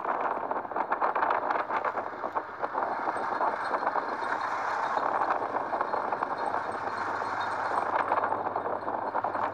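KTM Duke motorcycle riding at speed: a steady rush of wind and road noise with the engine running underneath.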